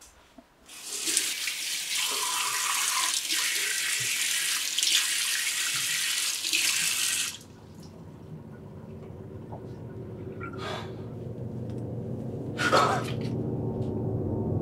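Water from a tap running into a sink for about seven seconds, then shut off abruptly. After it a low, droning horror-film music swell rises steadily, with two brief whooshes near the end.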